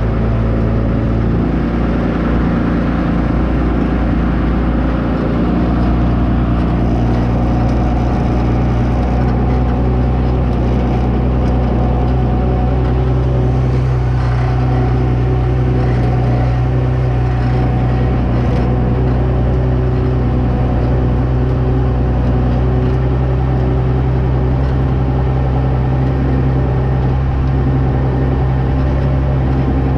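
Monster truck's engine running steadily as it drives, its pitch stepping up slightly about a second and a half in and then holding.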